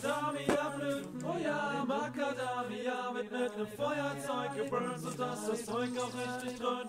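Background music: a song with a chanted, choir-like vocal over a steady bass line.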